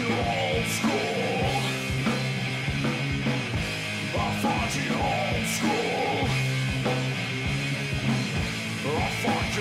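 Rock music with guitar, playing as a steady, loud soundtrack.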